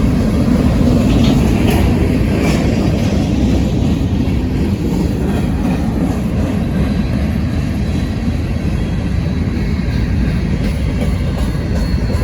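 Freight train cars rolling past as the train slows: a steady, heavy rumble of steel wheels on rail, with a faint high wheel squeal near the end.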